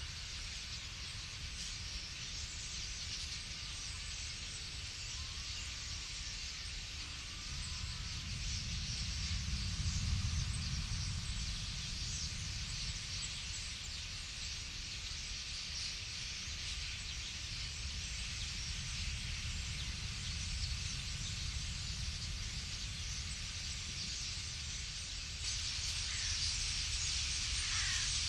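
A huge flock of common starlings, heard as a dense hissing chatter of countless calls, with a low rumble underneath; the chatter grows a little louder near the end.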